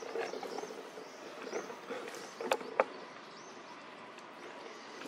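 Outdoor ambience: a faint steady background with soft high chirps about once a second, and two sharp clicks in quick succession a little past halfway.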